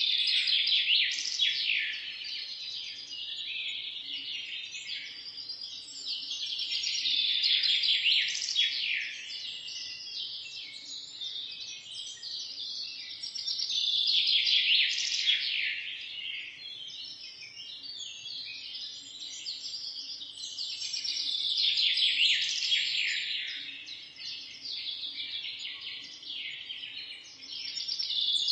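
A chorus of small birds chirping, many quick notes overlapping, swelling and fading in waves about every seven seconds.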